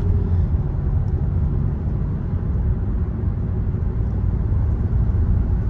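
Steady low rumble of a Kia Soul being driven, engine and road noise heard from inside the cabin. The engine is running nice, with no misfire, after its ignition coils were replaced.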